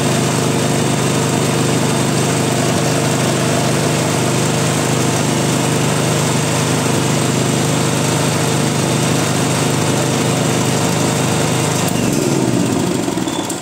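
Molar 3500 gasoline generator engine running steadily, then winding down near the end as it stops.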